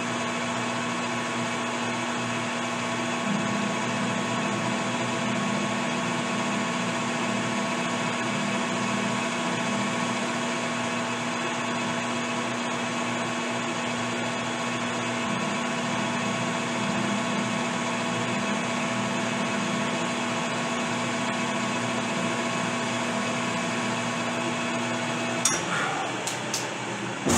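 Metal lathe running steadily with a constant motor hum and whine, turning a rifle barrel while a hand-ground radius cutter cuts the cone breech. Near the end the motor's hum cuts off, followed by a few sharp clicks.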